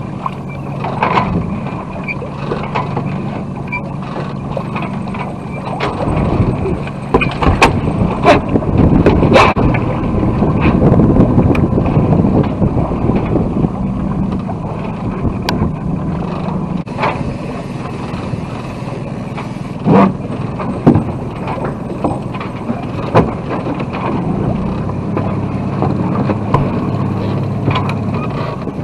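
Sailboat under way in strong wind: wind buffeting the microphone and water rushing along the hull, over a steady low hum, with scattered sharp knocks.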